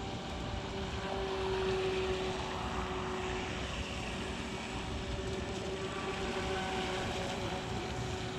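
Proboat StealthWake 23-inch deep-V RC boat's brushed electric motor whining at a steady pitch as the boat runs in tight circles at speed on its stock NiMH pack, with an even hiss underneath.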